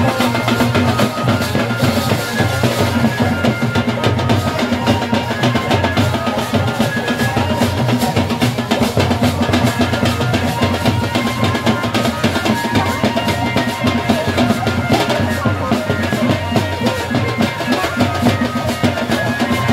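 Loud, continuous wedding band music: a drum kit keeping a steady beat with bass drum and snare under a keyboard melody.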